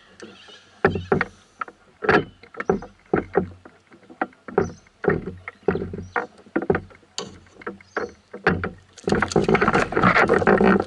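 Irregular knocks and clatter against a canoe, with a denser, louder stretch of clattering and rustling near the end.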